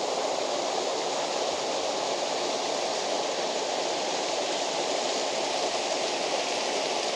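Waterfall rushing with a steady, even roar of falling water.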